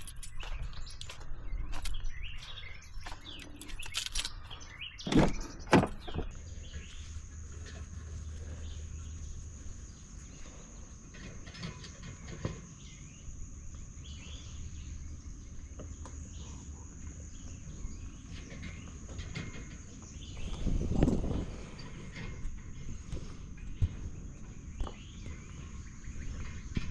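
Birds chirping, with two loud knocks about five seconds in; after that a steady high-pitched hum sets in and holds, under a low rumble and another dull thud later on.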